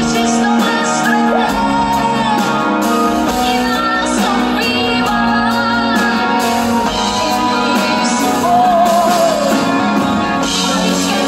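Live pop music: a band playing a passage of the song with no sung lyrics, with a wavering lead melody line about two thirds of the way through.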